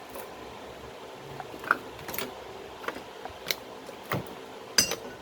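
Metal hand tools clinking and clattering as they are picked up and handled: about six separate sharp clinks, the loudest near the end.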